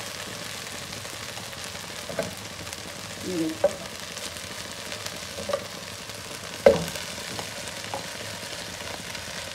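Chicken and vegetables sizzling steadily in a frying pan, with a few short knocks and scrapes of a utensil against the pan. The sharpest knock comes about two-thirds of the way in.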